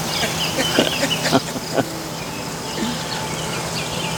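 Outdoor morning ambience: high chirping calls over a steady low hum, with a few sharp clicks.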